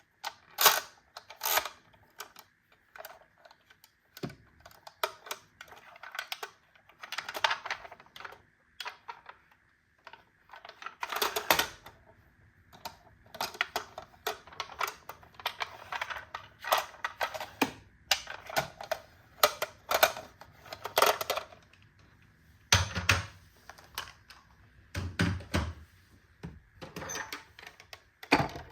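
Small toy vehicles clattering together in a box: irregular hard clicks and clacks, with two heavier thuds late on.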